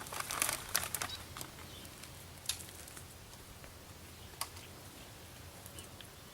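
Soft rustling and patter of hands working plants into loose potting soil, busiest in the first second or so, then just a couple of light clicks.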